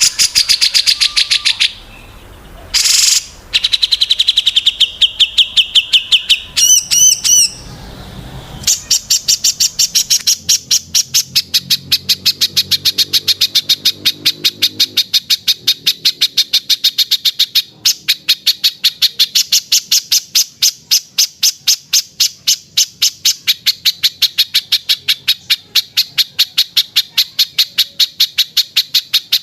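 Small songbirds giving sharp, high, rapid-fire chirps, the 'tembakan' calls of a bird-song training recording. A few short bursts and a brief warbling run come first; from about nine seconds in, the chirps go on without a break, about four to five a second.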